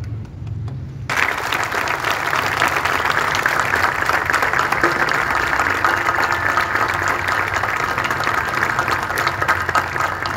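Crowd applauding. The applause breaks out suddenly about a second in and carries on steadily.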